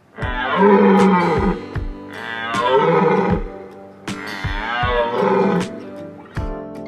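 Background music: a repeating melodic phrase with gliding pitch over a steady drum beat.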